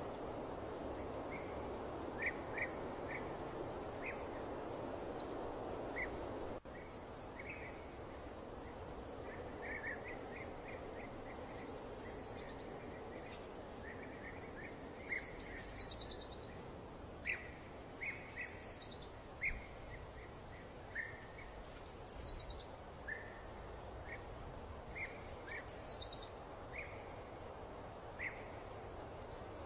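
Wild birds singing over a steady background noise. Short chirps come and go throughout, and from about a third of the way in a high call slides down in pitch, repeated every three or four seconds. The background noise drops suddenly about a fifth of the way in.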